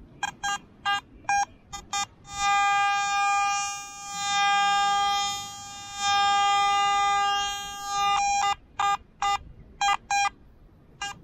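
Metal detector's audio signal as the coil sweeps over a buried target: short repeated beeps, then a held tone for about six seconds that fades and swells twice, then more short beeps. The target, a strong signal in the coin or silver range, turns out to be a rum bottle cap.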